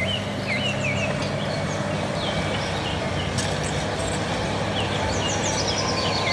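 Crawler bulldozer's diesel engine running steadily under load as it pushes dirt, with birds chirping over it.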